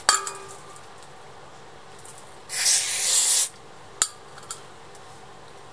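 Aerosol parts-cleaner can sprayed in one hissing burst of about a second. Just before, there is a metallic clink with a brief ring near the start, and a sharp tick follows about a second after the spray.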